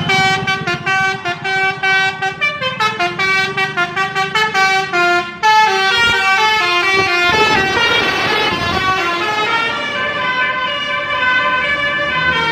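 Tour bus's telolet musical horn (Basuri v3 multi-tone horn) playing a loud melody, first a quick run of short stepped notes, then from about halfway longer held notes that change pitch a few times.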